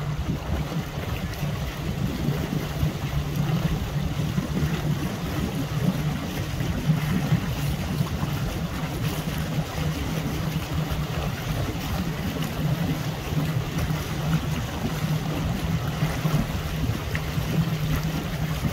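Wind buffeting the microphone over choppy lake water, with a steady low hum underneath.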